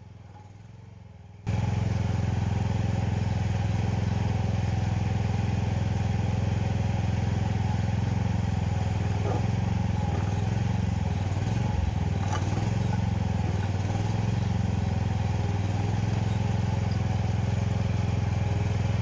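Mini excavator's engine running steadily while it digs around a carport post, with a few faint knocks; the engine sound cuts in abruptly about a second and a half in.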